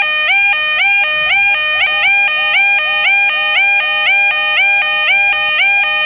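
Electronic level crossing alarm sounding continuously: a loud, rapidly repeating electronic tone, each note stepping up slightly in pitch. From about a second in the notes come twice as often.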